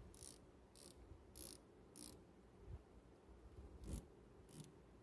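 8 mm Cornwell double flex ratcheting wrench being ratcheted in short strokes: about six faint, quick bursts of fine-toothed clicking, four close together and two more near the end.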